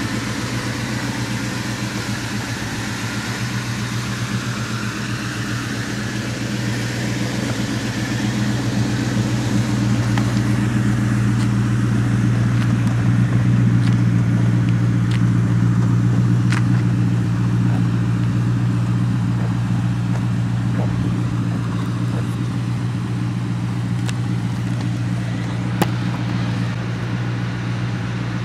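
2004 Ford Mustang GT's 4.6-litre V8 idling steadily through a Magnaflow cat-back exhaust, a low even rumble that grows louder for a while in the middle.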